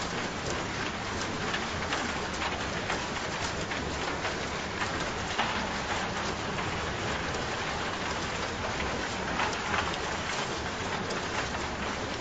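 Steady rain falling, a dense even hiss with many individual drops ticking on a surface.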